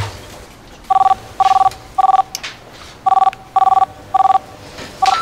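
Telephone ringing electronically: short two-tone trills in a group of three, a pause, then three more, and the start of another near the end.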